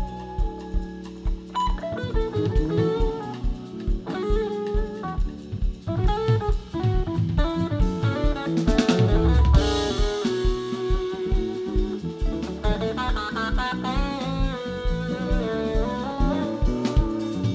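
Live rock band playing an instrumental passage: electric guitar lines over bass, keyboards and a drum kit with a steady kick drum. A loud crash comes about halfway through.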